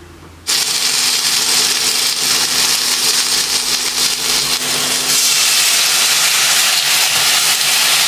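Pan of gyoza dumplings frying, a loud steady sizzle and hiss of steam that starts abruptly about half a second in.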